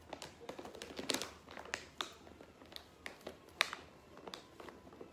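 Clear plastic bag of dried shredded chicken crinkling as a snack is taken and eaten from it: irregular small crackles and clicks, one sharper click about three and a half seconds in.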